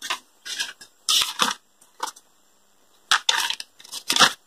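Paper notebook pages rustling as they are handled and turned, in several short rustles.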